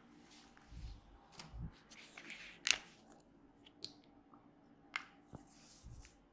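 Close-up sounds of hands massaging an oiled head: faint rubbing and a few soft low thumps, with a handful of sharp clicks, the loudest a little under three seconds in.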